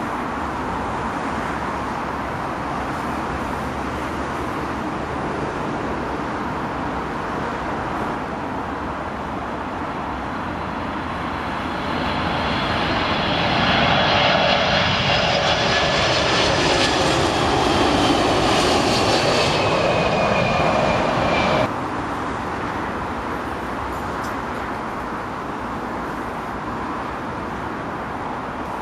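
Boeing 747 jet engines on final approach, passing low overhead. The sound builds from a steady distant rumble to a loud rush, with a whine that slides down in pitch as the jet goes by. It cuts off abruptly about three-quarters of the way through, and a quieter steady rumble follows.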